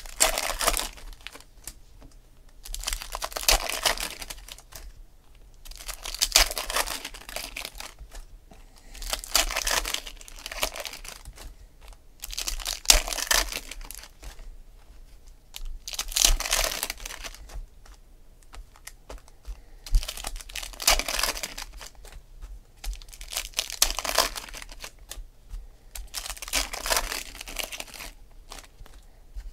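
Foil card-pack wrappers crinkling and tearing as packs of 2016 Panini Select football cards are opened and the cards pulled out, in repeated bursts about every three seconds.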